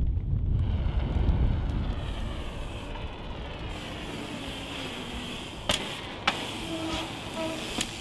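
Mountain bike rolling on a wet road, a steady tyre hiss, with wind rumbling on the microphone in the first couple of seconds and two sharp clicks about two-thirds of the way through.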